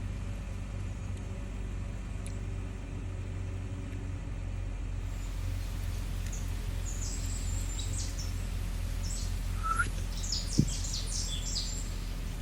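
Birds chirping in short, high calls from about six seconds in, over a steady low rumble, with a single sharp thump near the end.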